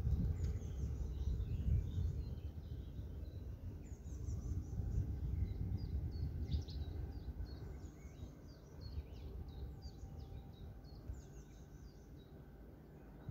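Birds chirping in short, repeated calls over a low, uneven rumble that fades after about eight seconds.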